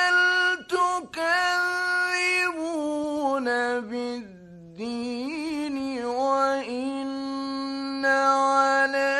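A male Quran reciter's voice in the melodic mujawwad style, holding long drawn-out notes. The pitch steps downward over the first few seconds and dips low and quiet near the middle, then resumes and climbs again near the end.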